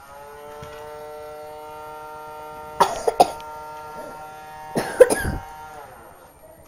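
Small vacuum cleaner motor whining as it spins up to speed, running steadily, then winding down about six seconds in. Two loud, short noisy bursts break in about three and five seconds in.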